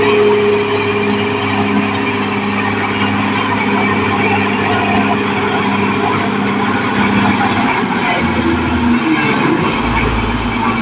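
Caterpillar D6R XL bulldozer's diesel engine running steadily, mixed with a dense clatter and hiss of tracks and machinery. The engine note shifts lower about eight seconds in.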